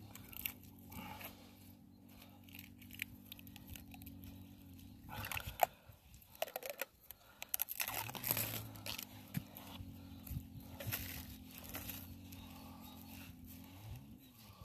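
Crinkling, tearing and scraping handling noises from bud-grafting work, with scattered clicks, heaviest about a third and just over half of the way in. Under them is a steady low hum that drops out for a few seconds in the middle and again near the end.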